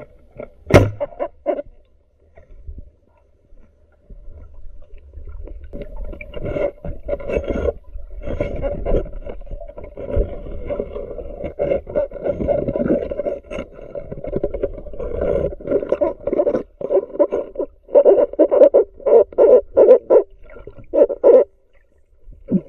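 Muffled underwater sound heard through a submerged camera while spearfishing: a low hooting tone that pulses on and off, coming in quick regular pulses near the end, with a sharp knock about a second in.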